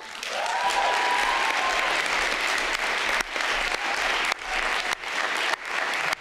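Applause from a large seated audience of delegates, starting as the speech ends and running on steadily.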